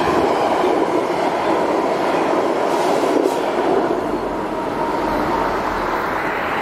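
VIA Rail passenger train passing close by at speed: the steady rolling noise of coach wheels on the rails. About four seconds in, the rear F40PH-2D diesel locomotive goes by and adds a low rumble.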